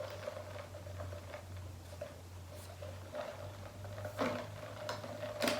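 Soft eating and handling sounds at close range: a few scattered clicks and smacks, the two sharpest about four seconds in and near the end, over a steady low hum.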